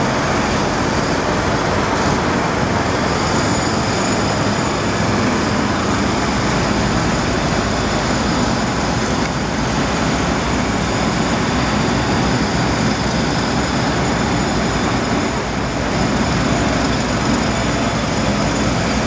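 Loud, steady construction-site machinery noise with a high whine above it, so loud that passing cars and trucks can't be heard over it.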